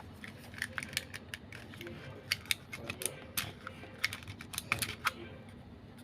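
A run of small, sharp, irregular clicks and taps from a 1:6 scale miniature toy pistol model being handled, its small hard parts clicking together.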